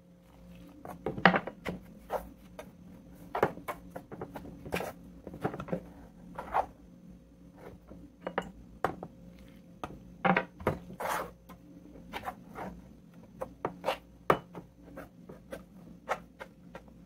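A spoon scraping and knocking against the inside of a cooking pot while stirring flour, oil and warm water into a pizza dough: irregular clicks and scrapes, several a second at times.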